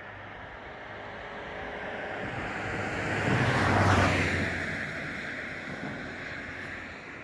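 A road vehicle passing by: tyre and engine noise swelling to a peak about four seconds in, then fading away.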